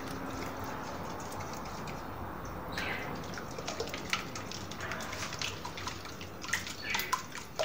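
Plastic balloon whisk beating eggs in a ceramic bowl: wet slapping of the liquid, with sharp clicks of the whisk against the bowl that grow more frequent from about halfway.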